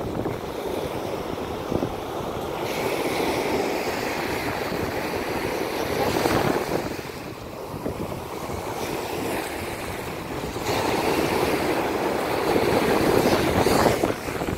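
Sea waves breaking and washing up the beach, swelling louder twice and easing between, with wind buffeting the microphone.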